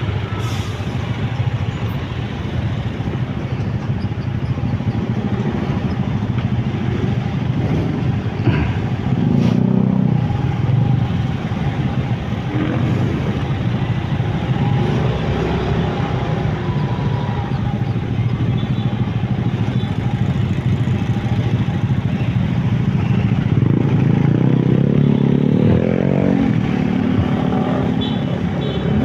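Motorcycle and car traffic heard from a moving motorcycle: a steady mix of engine and road noise. Near the end an engine note rises in pitch as a vehicle accelerates.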